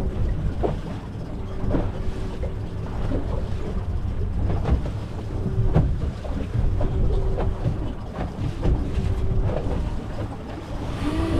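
Fishing boat at sea: a steady low rumble of wind and water, with a few light knocks and a faint hum that comes and goes.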